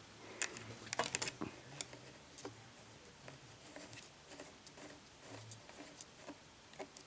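Faint clicks and small taps of fingers handling a gold-plated RP-SMA coax connector and cable against the plastic Wi-Fi range extender housing. A cluster of sharper clicks comes about a second in.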